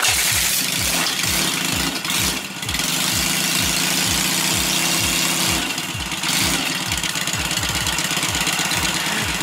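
A Yamaha XS650-type parallel-twin motorcycle engine in a 1975 chopper, kick-started and catching at once. It then idles with a steady low beat of about four pulses a second.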